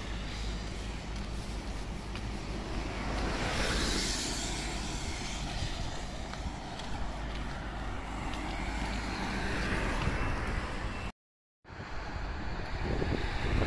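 Road traffic: a car passing on the road beside the track, swelling about four seconds in, over steady wind rumble on the microphone. The sound drops out for a moment near the end.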